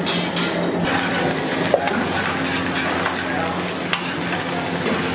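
Hot oil sizzling steadily in a large iron kadai as curry leaves fry, with a ladle stirring and two light metal clicks against the pan.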